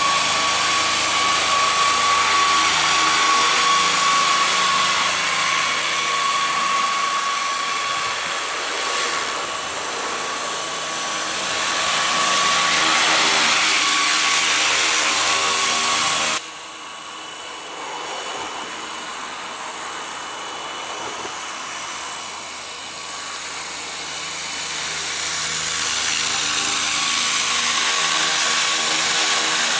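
Electric 700-size RC scale helicopter flying, its electric motor and gears giving a steady high whine over the rotor noise. The loudness drops suddenly about sixteen seconds in and builds back up toward the end.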